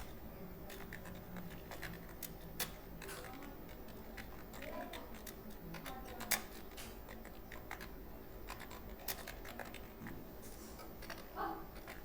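Scattered clicks of computer keyboard keys, single or in small clusters with pauses between, over a low steady hum.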